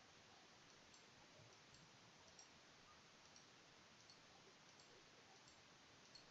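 Near silence: faint steady hiss with small faint clicks every half second to a second.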